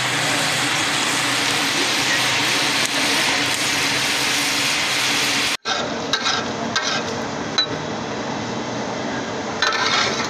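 A steady dense hiss for about the first half stops abruptly. It gives way to meat sizzling on a large flat iron griddle (tawa), with a metal spatula scraping and clinking against the iron. The clinks come thicker near the end.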